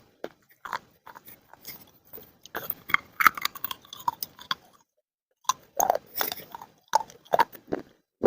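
Dry baked clay being bitten and chewed close to the microphone: a run of sharp, crisp crunches, thickest a few seconds in, a short pause just past the middle, then more crunches.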